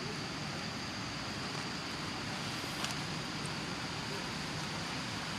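Steady outdoor background noise with a faint, continuous high-pitched whine and one small click about three seconds in.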